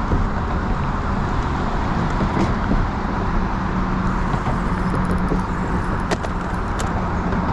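Steady rumble and hum of passing road traffic, with a few faint clicks near the end.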